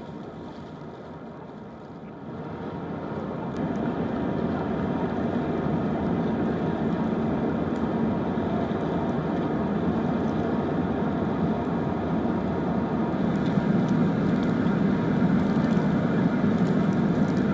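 Steady low, engine-like noise, as of a vehicle running, that swells over the first few seconds and then holds.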